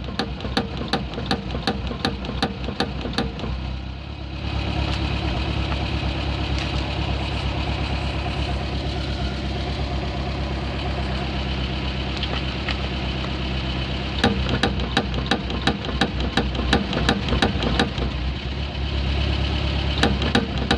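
Lada Granta idling, with a rapid, regular knocking about three times a second. The knocking stops about four seconds in, when the running sound grows louder, and returns about fourteen seconds in.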